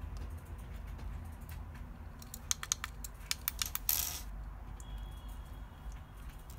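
Small metal screws and a small screwdriver clicking and tapping against a metal CNC case as the screws are fitted, with a quick run of sharp clicks about two seconds in and a brief scrape near four seconds.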